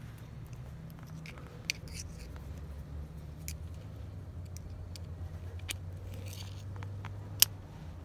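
Lock pick and tension wrench working the pins of a four-pin Master Lock bike lock: scattered sharp clicks a second or two apart, the loudest near the end, over a steady low hum.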